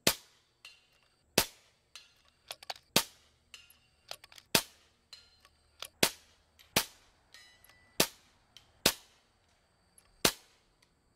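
A string of about nine suppressed shots from an FX Impact M3 PCP air rifle fitted with a Donny FL moderator. The shots are sharp cracks that come roughly every second and a half, with lighter clicks in between.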